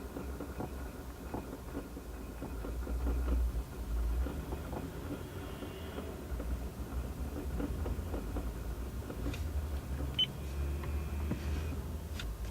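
Inside the cabin of a 17-series Toyota Crown at idle: a steady low engine hum with scattered light clicks. The clicks are the abnormal noise the owner takes to come from the air-conditioning mode-switching motor, a fault said to be common on older cars.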